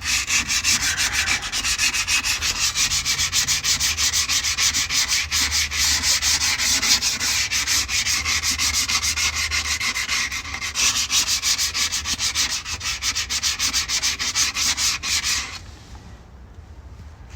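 150-grit sandpaper rubbed by hand in rapid back-and-forth strokes over the differential housing's gasket face, scouring off old RTV silicone. The scraping stops near the end.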